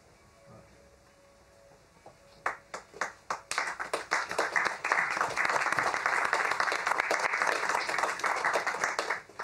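Audience applause: a few separate claps about two and a half seconds in, growing within a second into dense, steady applause that cuts off suddenly near the end.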